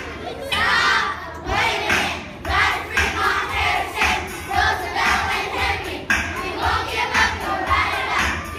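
A large group of children singing and shouting along in chorus to music with a steady beat.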